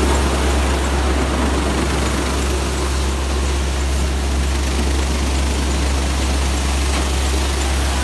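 Tractor-driven wheat thresher running steadily while threshing wheat. A constant deep hum lies under an even, noisy whir, with no changes in speed.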